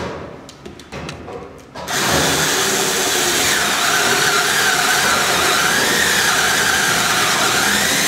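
Cordless drill set to speed 2, boring the top hole for a mortice lock into an upright timber post with an auger bit. After a quieter start with a few small clicks, it starts about two seconds in and runs steadily under load. Its whine dips and rises in pitch as the bit cuts into the wood.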